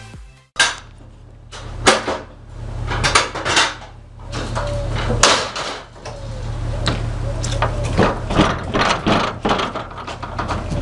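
Irregular knocks and clatter inside a metal livestock trailer as a cow is driven through it, over a steady low hum.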